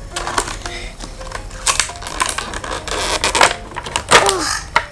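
Hard plastic toy parts clicking, snapping and knocking in quick irregular bursts as a stuck Hatch 'N Heroes transforming egg toy is worked open by hand, with a short falling squeak about four seconds in.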